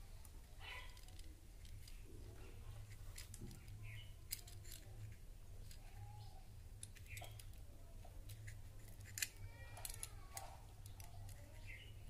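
Small, faint clicks and scrapes of wire and a plastic switch box being handled as wires are fitted into the switch terminals, with two sharper clicks about four and nine seconds in. A steady low hum runs underneath.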